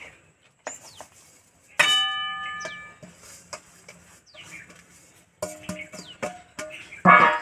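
Metal spatula and steel bowl knocking against a metal kadai while roasted sesame seeds are stirred into jaggery: one sharp strike about two seconds in rings for about a second, a few shorter clinks follow later, and a louder scrape comes near the end. Birds chirp in the background with short falling calls.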